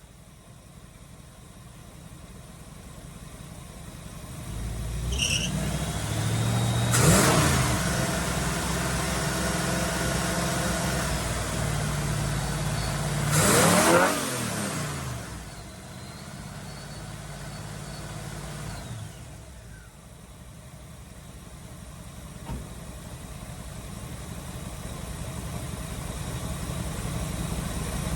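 Car engine with a freshly rebuilt Edelbrock carburettor running, revved up twice, about seven seconds in and again about fourteen seconds in, each rev rising and dropping back, then settling to a steady idle.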